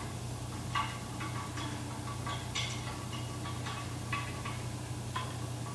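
Light, irregular metallic clicks and ticks, about ten of them, as a brass hose fitting is threaded onto a test cock of a double check valve assembly, over a steady low hum.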